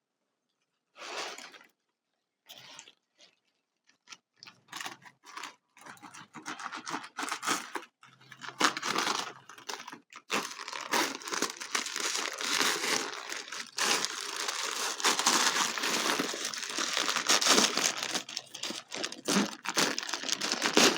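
Packing paper being crumpled and torn by hand while unwrapping a crystal: a few short rustles at first, then steady continuous crinkling from about six seconds in.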